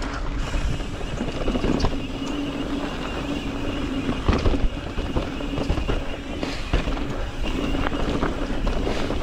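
Mountain bike riding along dirt singletrack, heard from a chin-mounted camera: a steady rush of wind on the microphone and knobby tyres rolling over packed dirt and pine needles, with a faint steady hum and scattered knocks and rattles from the bike over bumps.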